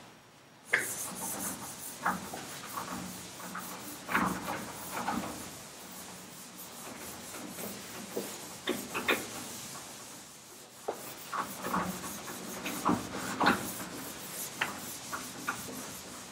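A sponge wiping a chalkboard clean in quick, irregular back-and-forth strokes. It starts just under a second in and eases off briefly around the middle.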